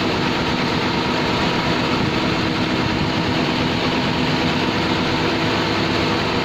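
Ferry boat's engine running steadily, with a constant rushing hiss of rain and wind over it.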